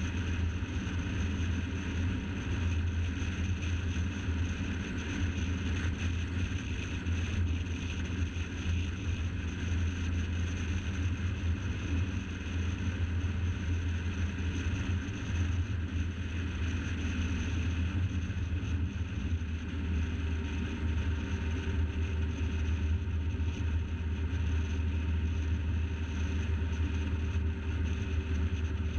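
Car driving steadily at speed on an open road: a constant low rumble of engine, tyre and wind noise, with no sudden sounds.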